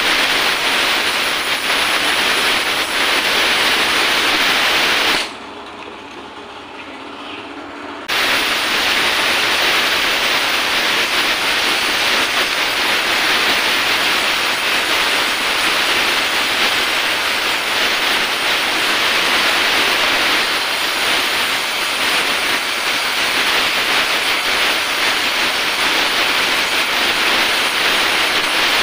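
Oxy-acetylene welding torch, fed with acetylene from a carbide generator, hissing steadily as its flame melts aluminium filler into a cracked oil drain bolt hole on a motorcycle crankcase. The hiss drops away sharply for about three seconds around five seconds in, then returns at full strength.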